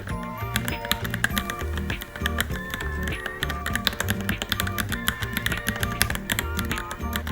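Rapid, irregular typing on a Varmilo Minilo mechanical keyboard, many quick key clicks a second, over background music with a plucked, guitar-like melody.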